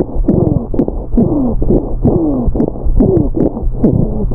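Recorded lung rhonchi through a stethoscope: a rough, coarse, low-pitched sound, like scraping, with repeated falling tones about two or three times a second. Rhonchi are a sign of airway obstruction in the central bronchi, frequently caused by thick secretion stuck to the bronchial walls.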